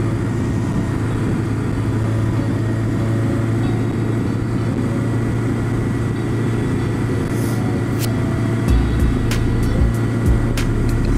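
Inline-four engine of a 2004 Kawasaki Concours 1000 motorcycle running at a steady cruise, with wind and road noise. Over the last few seconds there are a few sharp clicks and low thumps.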